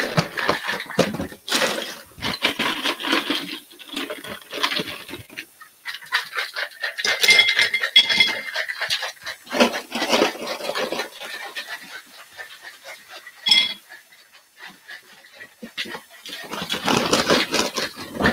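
Ice rattling hard inside a metal cocktail shaker as it is shaken, in several bouts with a short lull, with a few clinks and a brief ringing ping.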